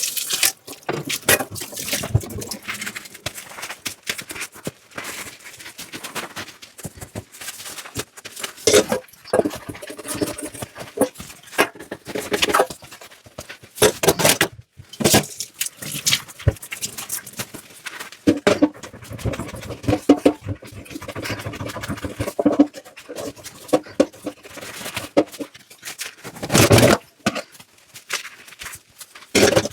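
Dishes being washed by hand in a sink: scrubbing and scraping, with frequent clinks and knocks of dishes and cutlery set down or bumped together, and a loud knock near the end.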